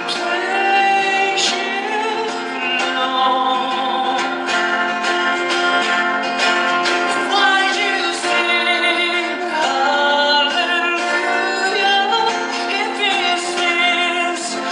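Background music: a song with a woman singing over instrumental accompaniment.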